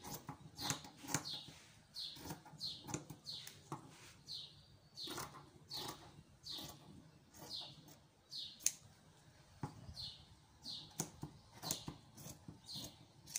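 Scissors cutting through fabric in a steady run of snips, one to two a second, each a short falling swish, with now and then a sharp click of the blades.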